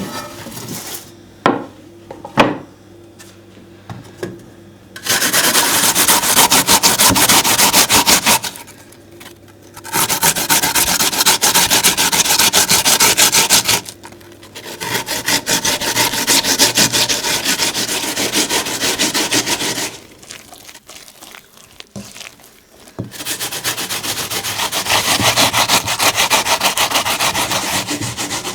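Loud, rapid rasping strokes, like a hand tool or grater working against a hard, woody surface, in four runs of several seconds each with short pauses between. A few sharp knocks come in the first couple of seconds.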